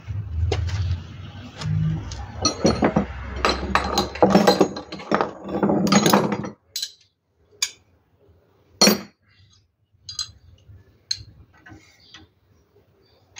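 Wrench and metal pipe fittings clinking against each other while the fuel pipe connections on a diesel engine are worked on: a busy run of clanks and clinks for about the first six seconds, then a few single clinks a second or so apart.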